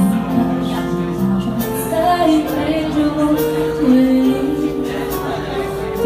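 Pop music with a steady drum beat and sustained chords, with a woman singing.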